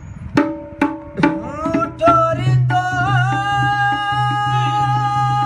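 A few sharp, ringing percussion strokes about half a second apart, then a man singing a long held note of a devotional qaseeda over a steady low drone.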